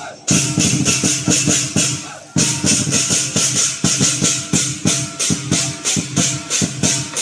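Lion dance percussion band playing: a big drum beating a fast, steady rhythm with crashing cymbals and a ringing gong. The beat stops for a moment twice, near the start and about two seconds in.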